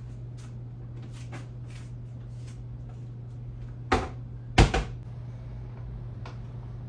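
Two sharp knocks about half a second apart, of kitchen things being handled or set down, over a steady low hum.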